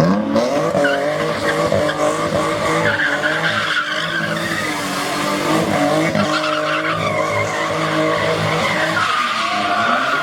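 A car engine revs up, then holds high revs while its tyres squeal in a long, wavering skid, as in a burnout.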